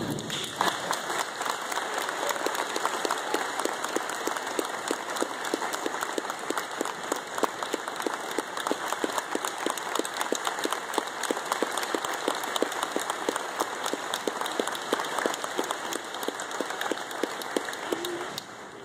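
Audience applauding, many hands clapping in a dense patter that drops away near the end.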